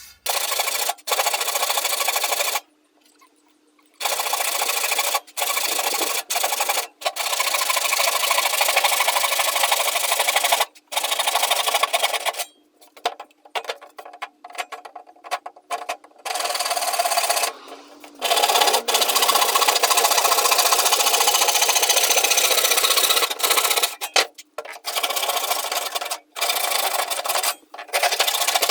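Saw cutting through pine slats: a rasping sound in long runs broken by short pauses.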